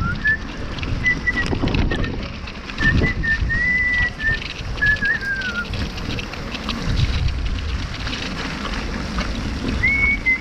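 A person whistling a string of short high notes, some held and some bending, over wind rumbling on the microphone.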